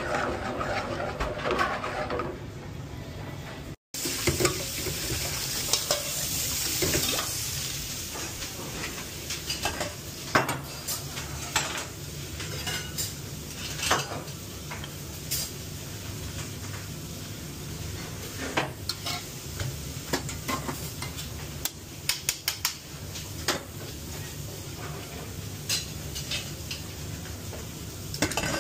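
A sauté pan sizzling on a gas burner as it is tossed. Then many sharp clinks and taps of metal spoons, tweezers and pans against plates and steel trays, over a steady low hum.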